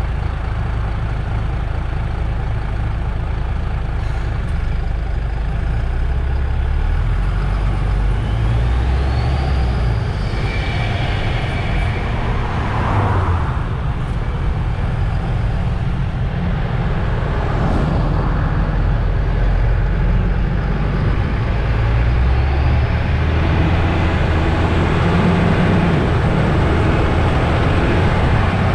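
MAN Lion's City GL articulated bus's diesel engine running, heard from outside the bus. Its low rumble shifts in level, and a whine rises in pitch about a third of the way through.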